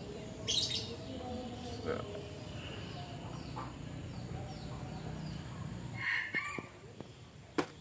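Chickens clucking faintly, with a few short sharp noises and a click near the end.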